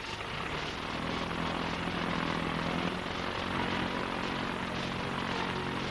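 Propeller aeroplane engine running steadily, coming in as the speech ends, heard through the hiss of an old optical film soundtrack.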